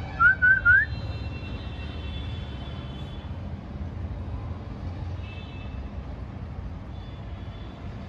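Parakeet giving one short, loud, warbling whistle that rises in pitch in the first second, followed by fainter high whistles a few times. A steady low traffic-like rumble runs underneath.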